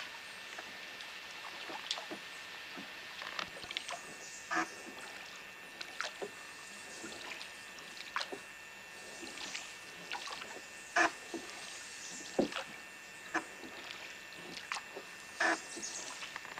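Wooden rowboat being rowed on calm river water: irregular splashes and knocks of the oars, a few much louder than the rest, over a steady faint hiss.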